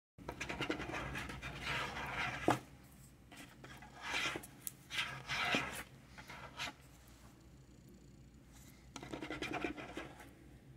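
Fingers scratching and rubbing across the surface of a lap tray in three bursts of scratching, with a few sharp taps or clicks in between.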